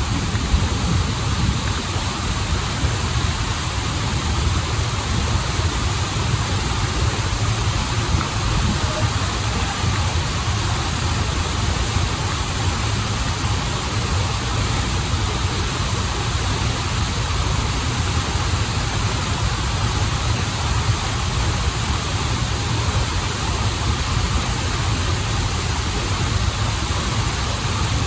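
Rushing water of a waterfall and stream: a steady, even noise with a deep low rumble beneath it.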